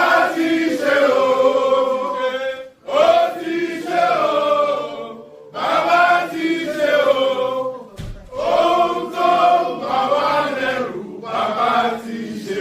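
A group of people singing together in phrases of a few seconds each, with short breaks between them.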